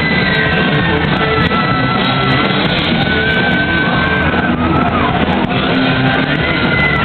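Live heavy metal band playing: distorted electric guitars, bass and drums, with a high melody line of long held notes that slide from one pitch to the next.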